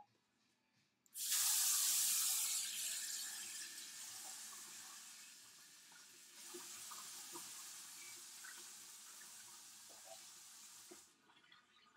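Water tap running into a sink, turned on about a second in and shut off near the end after about ten seconds of steady rushing.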